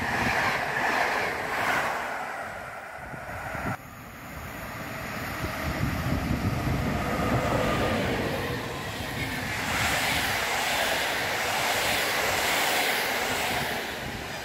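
PKP Intercity passenger coaches passing close by on the track: a steady rush and rumble of wheels and bodywork. It cuts off sharply about four seconds in and gives way to another passing train, which grows louder toward the end.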